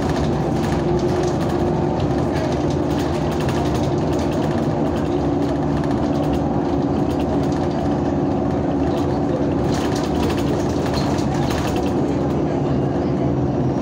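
Bus engine running steadily, heard inside the cabin as an even drone with a low hum and rumble, and a few faint rattles toward the end.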